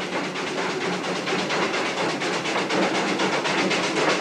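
Aveling & Porter steam roller under way, its engine giving quick, even exhaust beats over a steady hiss of steam.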